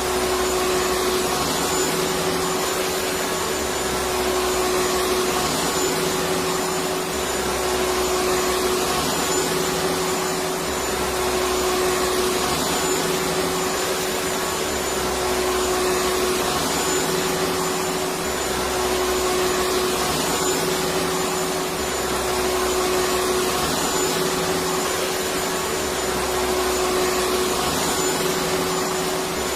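Electric vacuum cleaner running steadily, a constant rushing noise with a steady hum, and a low rumble that swells and fades about every three and a half seconds.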